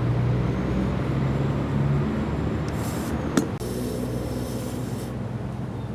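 Steady hum of an air compressor while inflating a dually inner tyre through a valve-stem extender. About three seconds in there is a short hiss and a click, then a longer hiss of air for about a second and a half.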